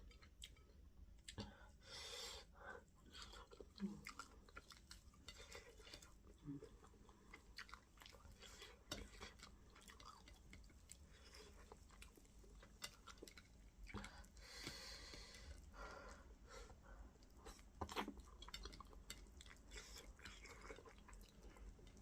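Faint, wet chewing and lip smacking of soft fufu and okra fish stew eaten by hand, with frequent small mouth clicks and a few louder smacks.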